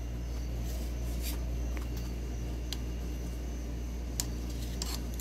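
Scattered faint clicks and light handling noises over a steady low hum.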